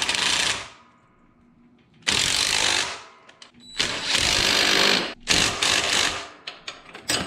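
Cordless impact driver with a 1/4-inch hex (Allen) bit hammering on a mower's brake caliper bolt while a wrench holds the nut behind it. It runs in repeated bursts of about a second each, with short pauses between them.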